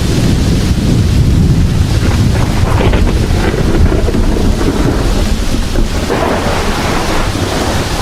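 Heavy rain with a continuous low rumble of thunder underneath.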